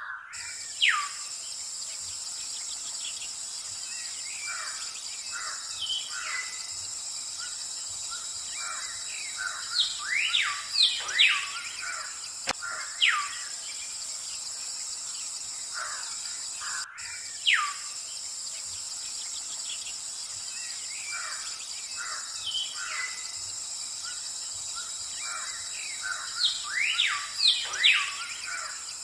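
Birds calling with repeated short falling whistles over a steady, high-pitched insect drone. The calls bunch together about ten seconds in and again near the end.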